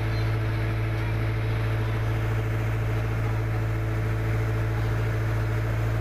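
Boat engine running at a steady speed, a constant low drone that does not change.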